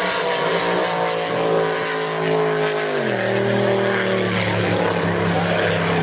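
Racing drag boat's engine running flat out at speed, a loud steady engine note that drops in pitch about three seconds in.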